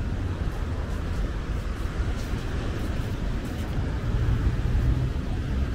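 Low, uneven rumble of wind buffeting the microphone of a moving bicycle, under a steady hiss of outdoor noise.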